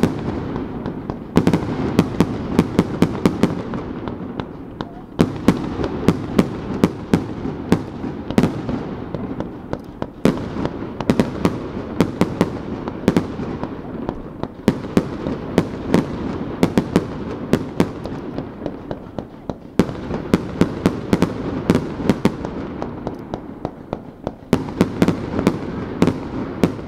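Aerial firework shells bursting in rapid volleys. Clusters of sharp bangs come about every four to five seconds, each bang trailing off in an echo.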